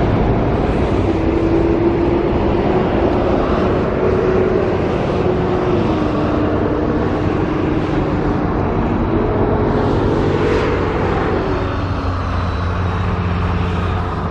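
Steady motor-vehicle noise: engine and road rumble with a droning hum that steps down in pitch, then up, and fades out near the end.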